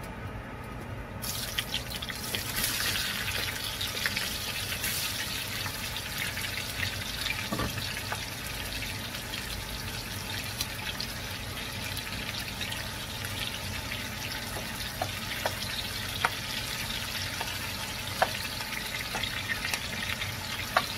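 Sliced onions dropped into hot oil in a non-stick wok start sizzling and crackling about a second in, then keep up a steady sizzle. Later a few sharp clicks come from the spatula knocking the pan as the onions are stirred.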